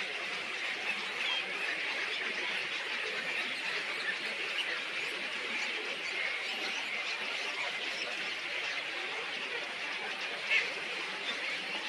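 A dense, steady chorus of many small birds chirping and chattering, with one louder call near the end.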